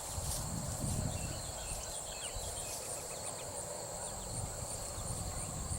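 Outdoor insect chorus of crickets or katydids: a steady, high-pitched pulsing trill, with a low rumbling noise underneath.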